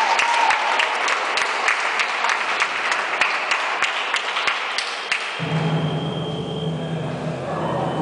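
Audience clapping in a large hall, a dense patter of claps that thins out about five seconds in. Then a low sustained tone sets in as music over the loudspeakers starts.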